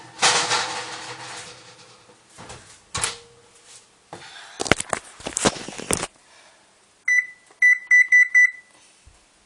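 Clattering and several clunks as the oven door is opened and the tray dinner goes in, followed by electronic beeps from the oven's control panel: one beep, then four quick beeps.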